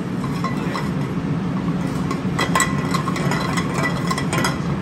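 Steady low rumble of a commercial gas range burning on high under the kitchen ventilation, with a few light metallic clinks as an omelet pan with clarified butter in it is tilted and swirled on the burner's iron grate.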